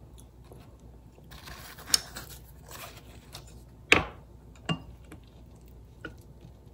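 Lettuce and perilla leaves rustling as they are handled, with a few sharp clicks of wooden chopsticks and dishes at the table, the loudest about four seconds in.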